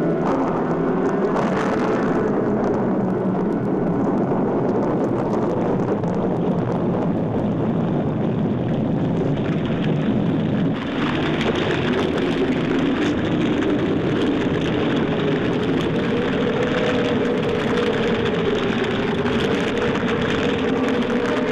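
Storm sound effect: steady rain noise with a slowly wavering low howl over it, growing harsher and hissier about eleven seconds in.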